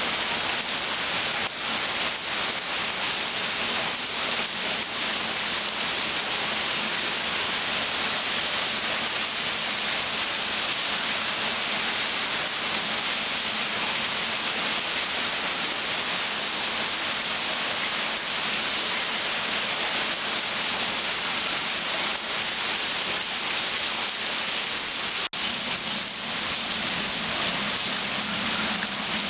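Rain falling steadily onto standing floodwater and wet pavement: a dense, even hiss of drops splashing on the water.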